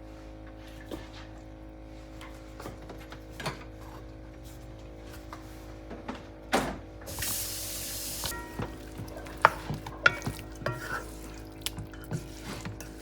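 Kitchen cooking sounds: scattered knocks and clinks of a utensil against a pot over a steady low hum. A hiss lasting just over a second comes about seven seconds in, and two sharper knocks follow a couple of seconds later.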